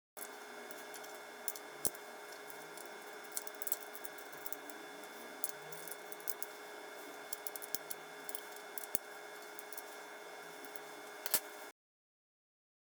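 Small metal screws, washers and plastic parts being handled, with scattered light clicks and rattles, over a faint steady hum.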